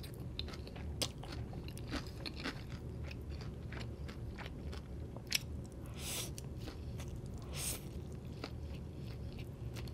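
Close-miked chewing and slurping of stir-fried egg noodles, with many small wet mouth clicks and a couple of longer slurps in the second half.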